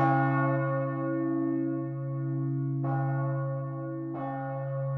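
The great 1502 Geert van Wou bronze church bell, tuned to C sharp, swinging on a cranked yoke: its clapper strikes three times, loudest at the start and then near three seconds and just after four, and the deep hum and upper partials ring on between strikes.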